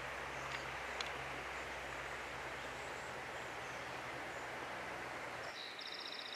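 Steady rush of flowing stream water with a faint low hum under it. Near the end the hum drops out and a bird gives a quick, high trill.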